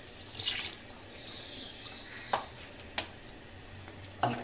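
Water poured from a bowl into a steel pot of chicken curry gravy, splashing in the first second, then a spatula stirring the gravy and knocking against the steel pot a few times.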